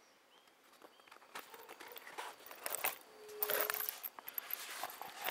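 Synthetic imitation-leather leg gaiters being handled: the stiff material rustles and flexes, and the metal buckles and rivets on the straps clink lightly. A short steady tone sounds about three seconds in.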